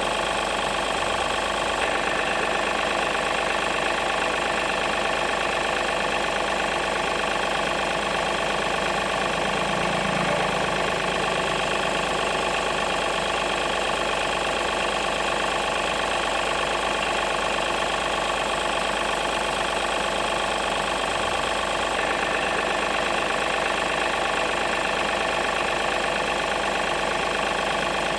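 Remote-control toy truck running steadily: a constant mechanical buzz with a fixed whine that holds the same pitch and level throughout.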